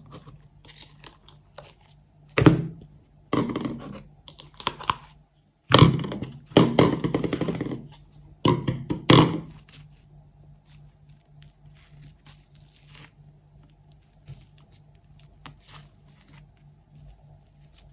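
Slime being mixed and pressed by hand: a run of irregular squelching, crackling bursts for several seconds, then only faint crackles.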